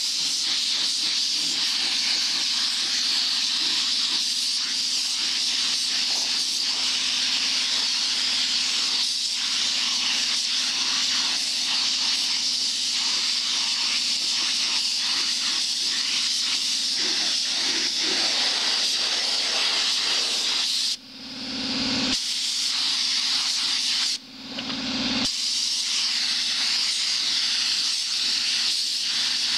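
Compressed-air gravity-feed spray gun hissing steadily as it sprays paint. The trigger is let go twice, briefly, about 21 and 24 seconds in, and the hiss cuts out each time before starting again.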